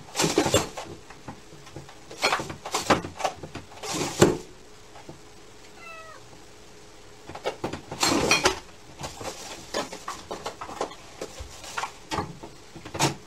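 A cat squeezing through a cat flap in a door, the flap knocking and rattling against the cat in several bursts, with the cat meowing.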